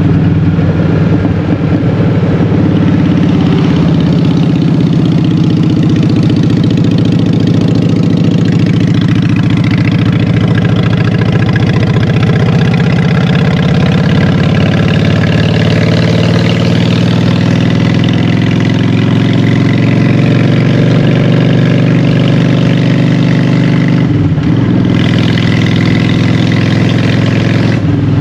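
Honda Shadow 750 V-twin engine running through Vance & Hines Short Shots exhaust pipes, its pitch gently rising and falling, with a brief drop about 24 seconds in and again near the end.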